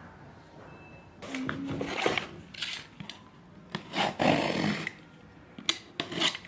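A box cutter slitting the packing tape along the seam of a cardboard box: several short scraping strokes, starting about a second in.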